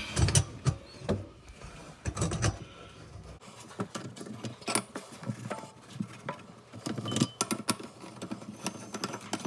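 Scattered light clicks, taps and rattles of a Kohler Duostrainer kitchen sink strainer's metal rings and nut being handled and fitted onto the strainer body, with a few dull handling thuds in the first few seconds.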